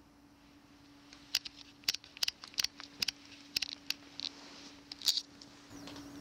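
Bare feet walking across old hardwood floorboards: a run of about a dozen irregular sharp clicks and ticks over four seconds, over a steady low hum.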